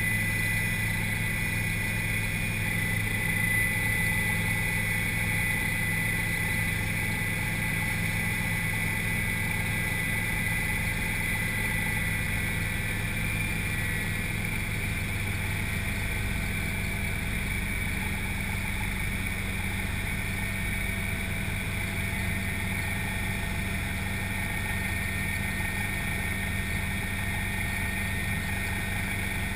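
Helicopter in flight heard from inside the cabin: a steady mechanical drone with a high whine over it, the whine fading somewhat about halfway through.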